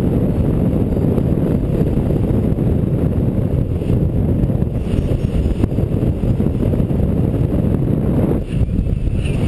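Wind rushing steadily over the microphone in gliding flight, a dense low rumble with no let-up.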